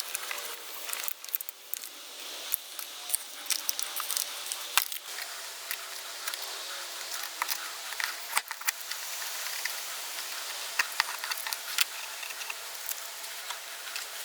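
Razor blade scraping softened sticker glue off a car's plastic body panel, a run of irregular light scratches and clicks.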